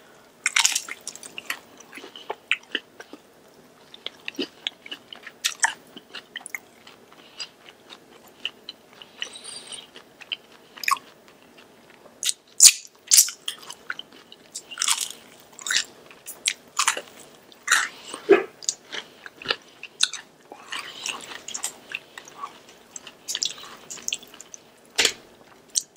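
Close-miked biting and chewing of crispy Korean fried chicken: irregular crunches throughout, some sharper and louder than others.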